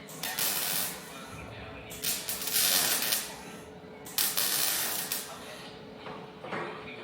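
MIG welding arc crackling and hissing in three short bursts, stop-start runs on thin metal, with a steady hum underneath.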